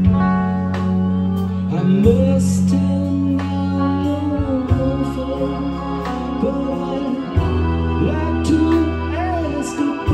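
Live band playing a slow rock song: electric bass holding long low notes, keyboard and drums, with a melody line of sliding, bent pitches over the top and a few cymbal crashes.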